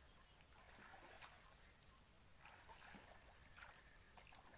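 Steady high-pitched insect chorus, with a few faint short knocks and splashes scattered through it.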